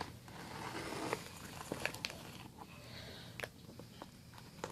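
Faint rustling and scraping with scattered sharp clicks and taps from handling a heavily taped cardboard shipping box.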